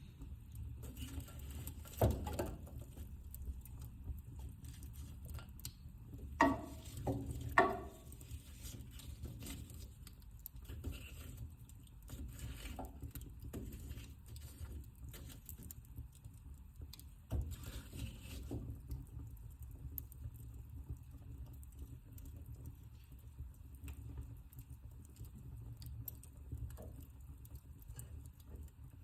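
Wood fire in a fireplace crackling steadily over a low background noise. A few sharper pops stand out: one about two seconds in, a pair around seven seconds in, and another a little past seventeen seconds.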